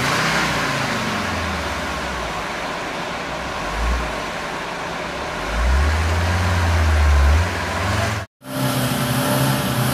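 UAZ-469 engine revving in repeated surges, the longest and loudest one about six seconds in, as the vehicle works through a muddy ditch. After a sudden break near the end, a different engine runs steadily.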